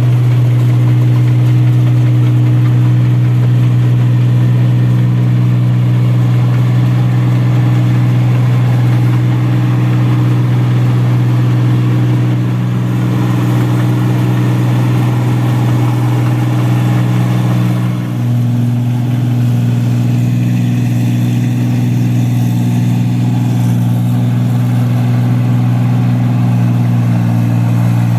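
An engine running steadily at a constant speed with a strong low hum. About two-thirds of the way through it dips briefly and settles at a slightly different note.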